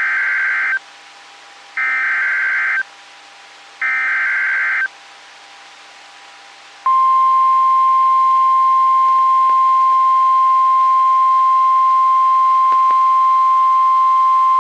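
NOAA Weather Radio Emergency Alert System alert: three one-second bursts of SAME digital header tones, about two seconds apart, which encode the alert for receivers. About seven seconds in, the steady 1050 Hz warning alarm tone starts and holds, marking a warning-level alert, here a severe thunderstorm warning.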